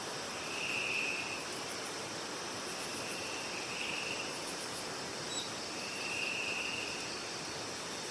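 Insects chirring in high-pitched bouts of about a second each, four times, over a steady background hiss.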